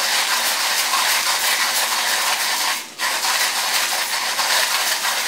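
Coffee beans being crushed in the burrs of an Orphan Espresso LIDO3 manual hand grinder set fine for espresso, its crank turned steadily, a continuous crunchy grinding with a brief break about three seconds in.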